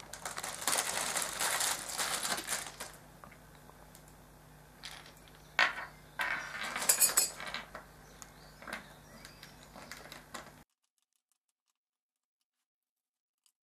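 Small fixings being handled: a rustle, then scattered sharp clicks and taps as screws and rubber feet are picked up and set on the laminated base board. The sound cuts out to dead silence a few seconds before the end.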